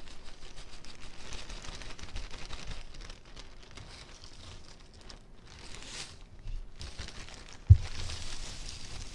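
Plastic zip bag crinkling and rustling as crushed Oreo cookies are shaken out of it into a cup, with one sharp thump near the end.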